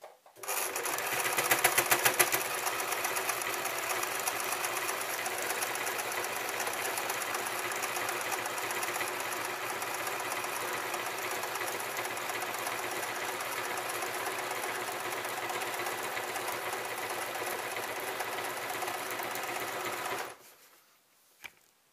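Electric domestic sewing machine running at a steady speed, sewing a line of stitches through hammock fabric. It starts about half a second in, is a little louder for its first couple of seconds, runs for about twenty seconds and stops near the end, followed by a single short click.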